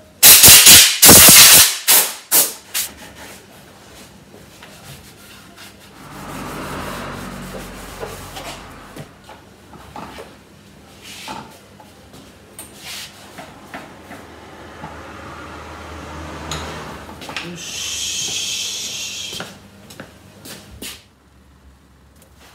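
Compressed-air blow gun blasting dirt off a stripped scooter's frame to clean it: one long, very loud burst of air, then several short blasts. Quieter, irregular cleaning noises follow, with a spell of high hissing for a couple of seconds near the end.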